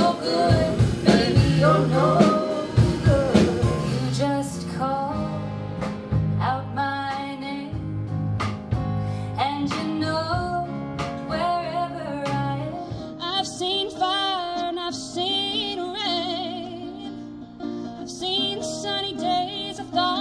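A woman singing with a live band of guitar and drums. About four seconds in the band drops back, and her voice carries on with vibrato over lighter accompaniment.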